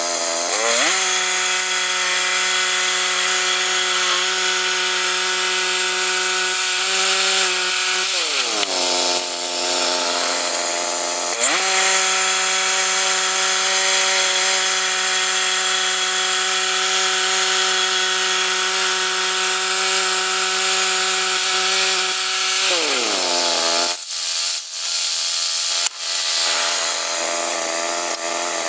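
Two-stroke chainsaw running at high revs, cutting pine. Its pitch sags about eight seconds in, jumps back up a few seconds later, and drops again near the end.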